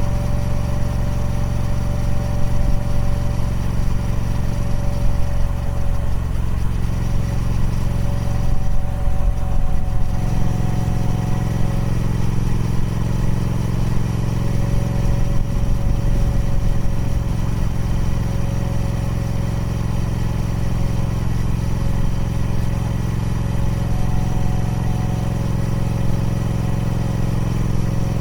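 Triumph Speed Twin 1200's 1200cc parallel-twin engine running steadily through its stock exhaust, with a brief change in the engine note about a third of the way in.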